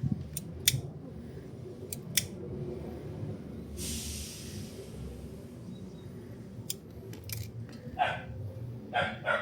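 Scissors snipping in a few sharp clicks, and about a second in the middle of tape hissing as it is pulled off the roll, while repaired wiring is taped up.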